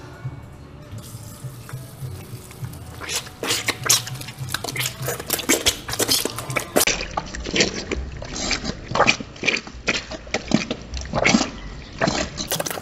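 Water from an automatic sensor faucet running into a sink, with hands rubbing and splashing under the stream. The splashing starts about three seconds in and goes on irregularly.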